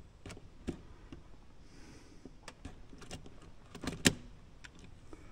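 Small clicks and knocks of plastic and metal drive-train parts being handled while a drive shaft is fitted into the underside of an RC crawler, with one sharp click about four seconds in.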